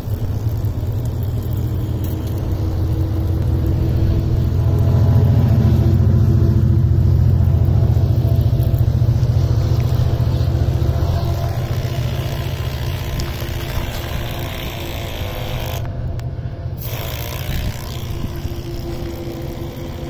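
12 V self-priming portable car wash pump running steadily while it sprays water through a hand spray gun, with a strong low rumble that swells in the middle and eases off later.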